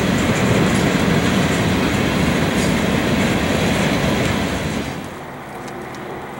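A freight train's covered hopper cars rolling past close by, a steady rumble and rattle of wheels on rail with scattered clicks. Near the end it gives way suddenly to much quieter background sound.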